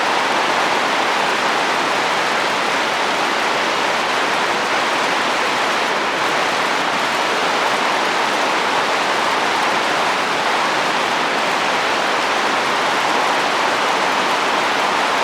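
Rainstorm with wind: steady, fairly loud rain falling on a roof, an even hiss with no distinct drips or gusts standing out.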